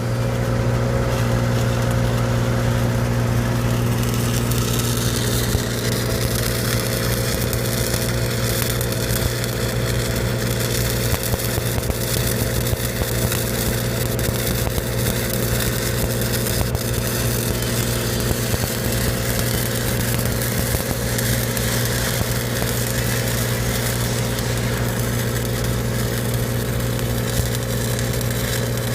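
Engine-driven welding machine running at a steady speed under a stick (SMAW) welding arc on steel pipe, with the arc crackling over the engine drone.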